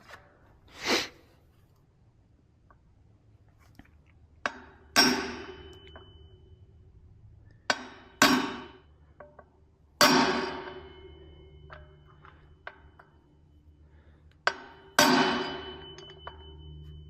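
Hammer blows driving a wheel bearing into a Yamaha XT225 wheel hub. There are about five heavy strikes a few seconds apart, several with a light tap just before, and each blow leaves a ringing metallic note that dies away over about a second.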